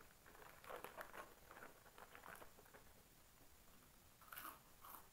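Crisp crackling of a foil potato chip packet as a hand rummages in it, then a potato chip bitten and crunched, the strongest crunches about four and a half seconds in.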